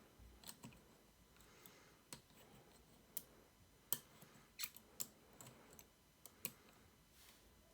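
Faint, irregular metallic clicks of a lock pick tool working the pins inside a Mul-T-Lock Interactive cylinder, about a dozen separate ticks spread over several seconds.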